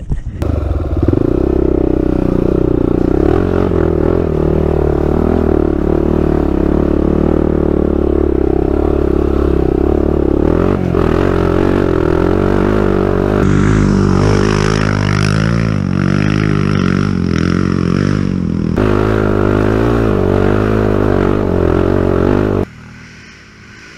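ATV engine running under throttle while riding a rough, wet dirt trail, with rattling and scraping from the machine over the ground. The sound jumps abruptly a few times and turns much quieter about a second before the end.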